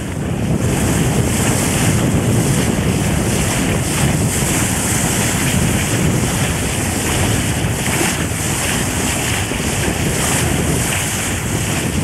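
Wind buffeting the microphone over the steady rush of water along the hull of a heavy wooden ketch sailing well heeled at about 8.5 knots.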